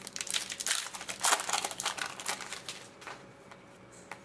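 Trading cards and a foil pack wrapper being handled: quick crinkling and rustling with small clicks, dying down about three seconds in.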